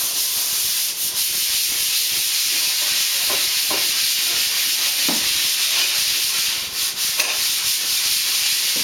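A steady, even hiss of noise, strongest in the high range, with a few faint short sounds over it.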